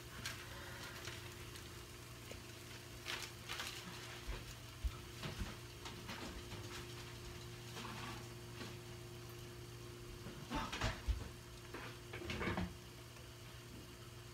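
Scattered knocks and clatters of kitchen items being handled and put away, over a steady low hum.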